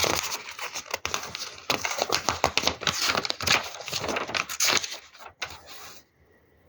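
A deck of oracle cards handled by hand: rapid, irregular papery clicks and rustles that stop about five seconds in.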